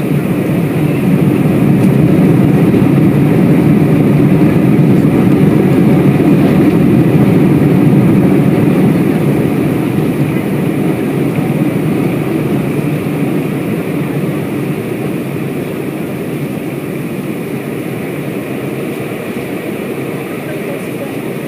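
Jet airliner's engines and wheels rumbling, heard inside the cabin during the landing roll on the runway. The noise is loud and steady for the first half, then eases off gradually.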